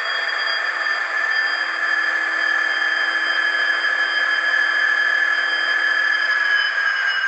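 Diesel engine sound from the DCC sound decoder of N gauge Dapol Class 66 models, played through their tiny onboard speakers: a steady engine sound with a high whine that holds nearly level in pitch. A low hum drops out shortly before the end.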